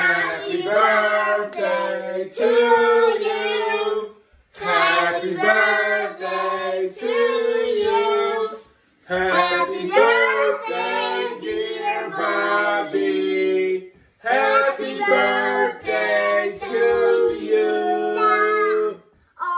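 A high voice singing short phrases of held notes, breaking off briefly about every four to five seconds.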